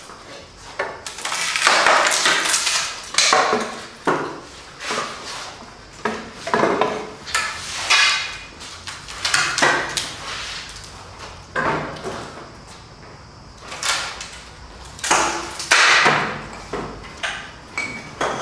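Wooden shipping crate being pulled apart by hand: a string of short, irregular scraping and knocking noises from the wooden frame.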